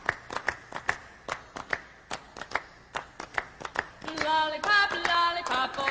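Rhythmic hand claps, about two to three a second, opening a music track; a melody joins the claps about four seconds in.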